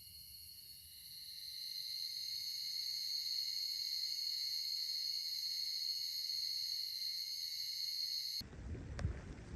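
Insects droning in a steady, high-pitched chorus that swells over the first couple of seconds and then holds. It cuts off abruptly near the end, giving way to wind rumbling on the microphone and a couple of knocks.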